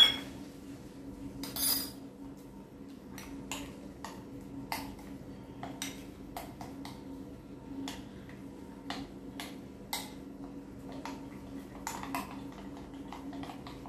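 Metal spoon stirring semolina batter in a glass bowl, clinking and scraping against the glass in irregular strokes, over a steady low hum.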